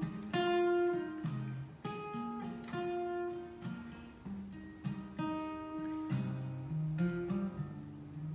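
Solo acoustic guitar playing an instrumental intro, single plucked notes and chords ringing out and fading one after another.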